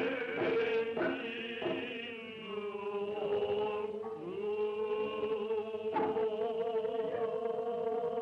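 Noh chant (utai): voices in unison holding long, wavering notes, with a few sharp hand-drum strikes in the first two seconds and one more about six seconds in.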